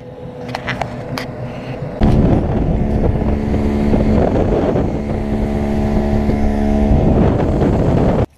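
Boat motor running under way, with wind buffeting the microphone. It gets much louder about two seconds in, then cuts off abruptly near the end.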